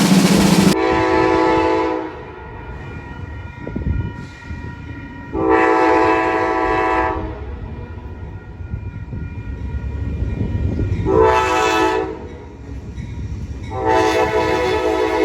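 Multi-chime train horn sounding long, long, short, long, the standard signal for a train approaching a grade crossing, over the low rumble of the passing train. A loud drum roll cuts off under a second in, just before the first blast.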